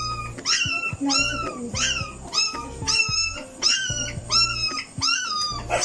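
Two-week-old Belgian Malinois puppy crying in a rapid series of high-pitched cries, about two a second, while being held and dosed from an oral syringe.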